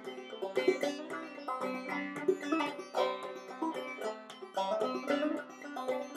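Banjo played clawhammer style: an instrumental break of quick plucked notes over a steady drone string.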